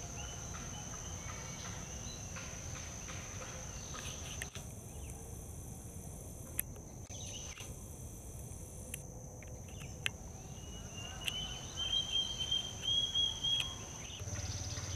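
Insects trilling: a steady high-pitched note holds throughout, and a second, lower wavering trill swells in about eleven seconds in, over a low outdoor hiss. A couple of faint ticks sound in the middle.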